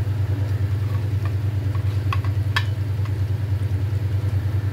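A steady low hum with a fast, even pulse, the loudest sound throughout. Over it, a few faint squelches and clicks from a hand mixing marinated raw chicken pieces in a steel plate.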